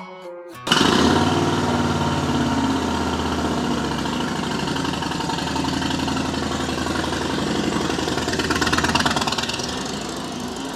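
Bagger motorcycle engine running as the bike is ridden. It cuts in abruptly under a second in, grows louder around eight to nine seconds in, then fades toward the end.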